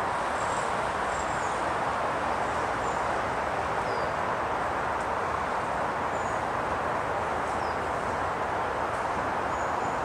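Steady, even rushing outdoor noise with a few faint, short, high bird chirps scattered through it.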